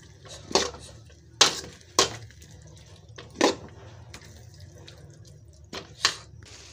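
Thick masala sauce simmering in a kadai, with about six separate pops of bubbles bursting, two of them close together near the end.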